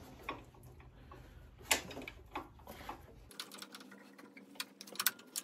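Scattered light metallic clicks and taps of a flywheel lock being fitted against the ring gear of an air-cooled VW engine's flywheel. A low background hum stops abruptly about three seconds in.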